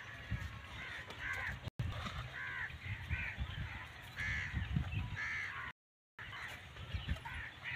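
Crows cawing again and again, short harsh calls at an uneven pace, over a few soft low thumps. The sound cuts out briefly twice.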